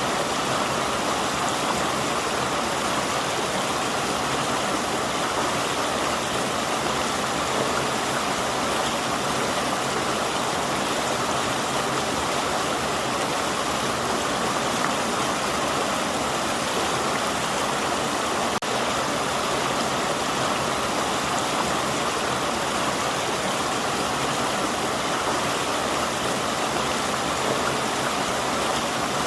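Forest river flowing: a steady, even rush of running water.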